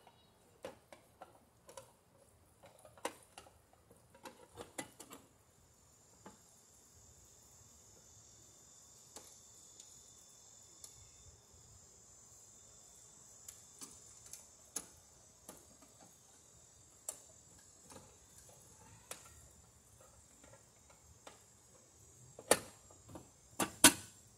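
Scattered clicks and knocks of hands and tools handling a metal outdoor receptacle box, busier in the first few seconds, with two sharp knocks near the end. From about five seconds in, a steady high insect drone sits underneath.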